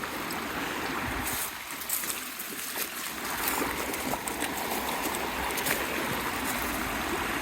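Running creek water, a steady rushing, with scattered light crackles over it.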